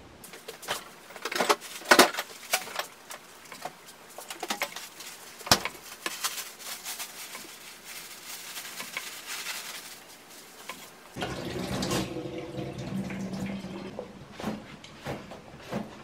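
Chef's knife chopping boiled pork on a plastic cutting board, with sharp knocks of the blade hitting the board, mostly in the first half. A steady rushing hiss follows in the middle, then a low steady hum from about two-thirds in.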